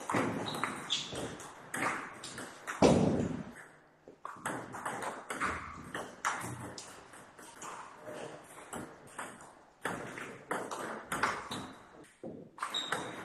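Table-tennis rally between a penhold bat with long-pips rubber and a shakehand bat: the ball clicks quickly off the bats and the table, point after point, with two short pauses between rallies. A louder thump comes about three seconds in.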